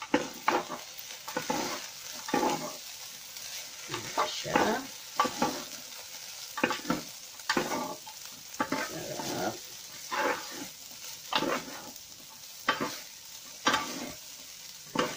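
Chopped meat and vegetables for fried rice frying in a pan with a steady sizzle, stirred and scraped around the pan in short strokes, a little more than one a second.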